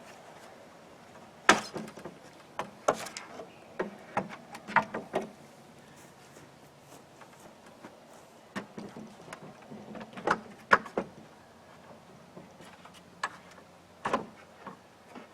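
Scattered knocks and clicks, a dozen or so at uneven intervals, from handling the board and the circular saw once the rip cut is over; the saw itself is not running.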